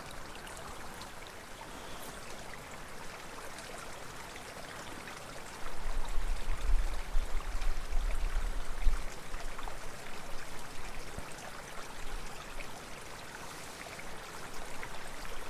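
Small creek running steadily, an even rush of flowing water. From about six to nine seconds in, a louder low rumble sits on top of it.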